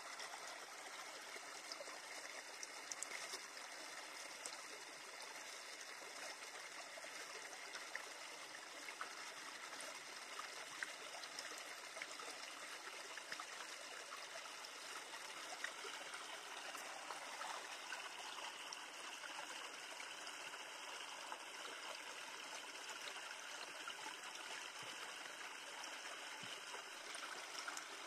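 Shallow stream running steadily, a soft continuous rush of water.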